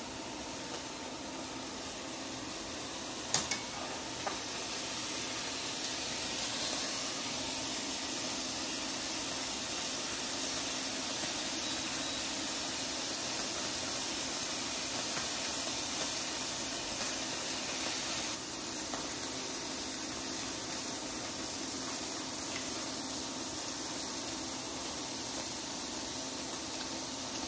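Filet mignon steaks sizzling steadily in butter in a hot cast iron skillet as they are seared, with a couple of sharp clicks about three and four seconds in.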